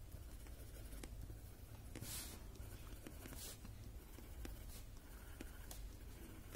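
Graphite pencil scratching faintly on a paper Zentangle tile in a few short shading strokes, adding graphite to the tips of the pattern.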